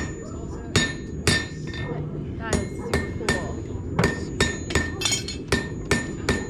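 Blacksmith's hammer striking a steel bar on an anvil: about a dozen ringing blows at an uneven pace of roughly two a second.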